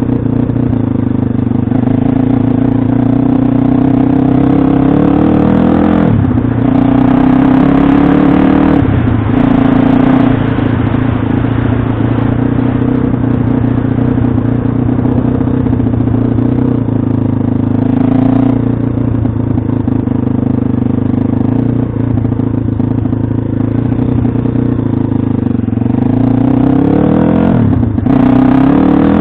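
Pit bike engine running hard under throttle, its pitch dropping and climbing again several times as the revs change.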